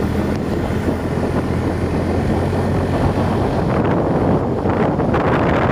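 Motorcycle engine running steadily while riding, with wind rushing over the microphone that gusts louder near the end.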